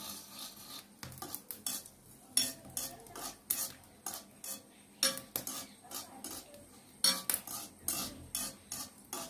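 Metal spoon scraping and clinking against a steel kadai as the contents are stirred while browning over the fire: irregular sharp scrapes and taps, some louder than others.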